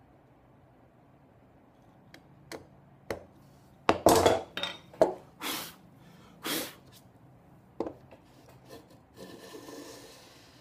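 Hand tools cutting wood in a dado: a chisel paring and a router plane shaving the bottom, heard as a series of short scraping strokes that are loudest about four seconds in, then a longer, softer shaving stroke near the end.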